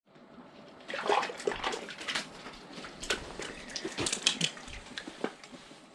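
Water splashing and sloshing in a hole in the ice, mixed with irregular knocks and clicks, as a bass is hauled up through it.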